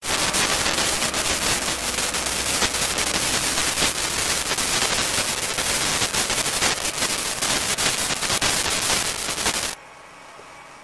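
Loud radio static from electromagnetic interference on the audio, a dense crackle of rapid clicks, which cuts off abruptly near the end to a faint hiss.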